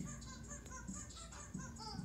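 Music played on a TV: a rubber chicken squeaked in quick short notes as the tune of a song, over a steady low backing track, heard faintly through the TV's speakers.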